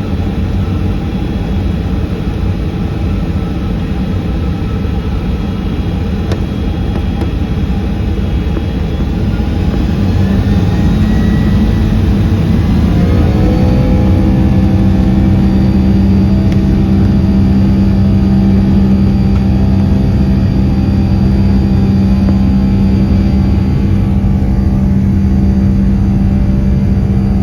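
Boeing 757-200 jet engines heard from inside the cabin, spooling up with a rising whine about ten seconds in, then holding steady and louder at high power, as for the takeoff roll.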